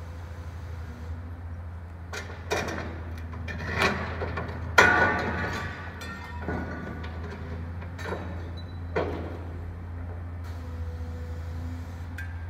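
Demolition excavator's engine running steadily, with a series of sharp metal clanks and crashes as its demolition attachment tears at the building's steel frame; the loudest crash comes about five seconds in.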